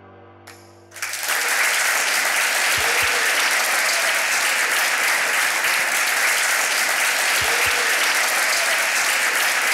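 Audience applauding steadily, the clapping starting about a second in as the last held chord of background music fades out.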